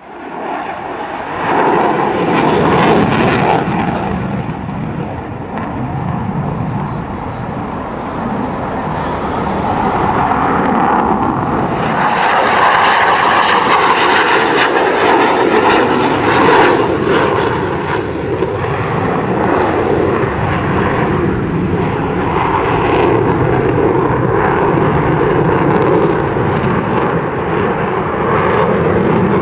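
F-22 Raptor jet fighter flying a display pass, its engines giving a loud, steady roar with a droning tone running through it; the roar swells about a second and a half in.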